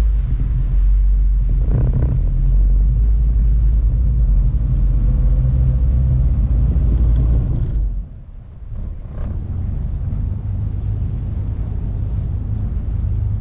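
Sightseeing boat's engine running with a deep, steady rumble, heard from the bow. About eight seconds in the sound drops sharply, then goes on more quietly.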